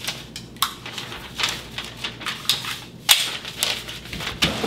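Irregular metallic clicks and clacks of a Beretta 92S pistol and its magazines being handled and set down on a glass counter, with paper rustling between them.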